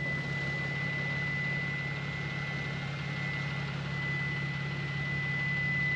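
Toyota truck's engine idling in drive, with a steady high warning tone sounding because the driver's door is open while the transmission is in drive.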